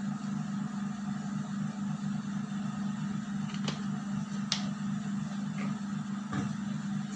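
A steady low hum with an even hiss behind it, and a few faint clicks around the middle.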